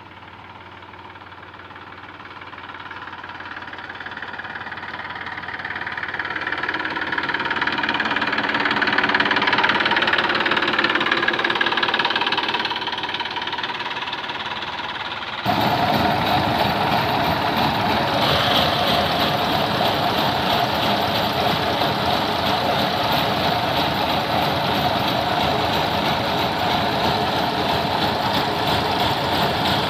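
Diesel engines of Massey Ferguson tractors towing threshers along a dirt track, the sound swelling as they pass and easing off. About halfway through it cuts to the loud, steady mechanical din of a tractor-driven threshing machine running.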